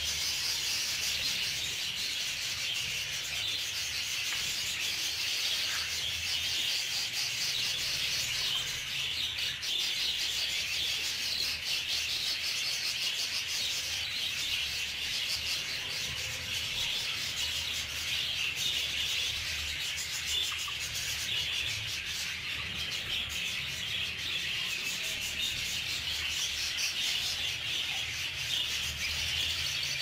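Continuous chatter of a flock of budgerigars, a dense, even twittering without pause.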